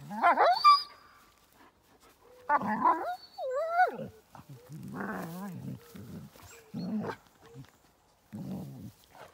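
Dogs playing rough, giving short bursts of growls and yelping whines that bend up and down in pitch, about half a dozen in all with quiet gaps between.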